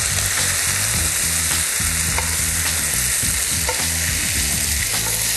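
Oil still sizzling in a hot metal frying pan as stir-fried rice and vegetables are slid and scraped out of it onto a plate with a spoon, with a few faint clicks of the spoon on the pan.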